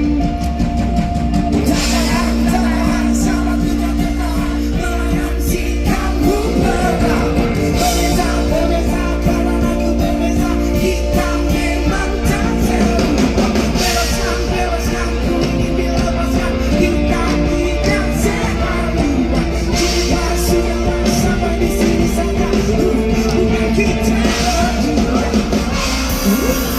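Live rock band performing a song, with singing over band accompaniment and a heavy, steady bass.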